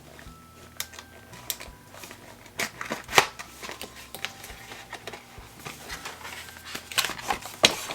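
Eyeshadow palette packaging handled by hand: a cardboard sleeve and the palette case rustling, sliding and clicking in short irregular taps, with louder scrapes about three seconds in and again near the end.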